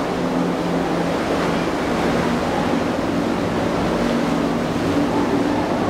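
Rough surf churning and rushing through a narrow inlet, a steady wash of breaking water, with the low, even drone of boat outboard engines running underneath.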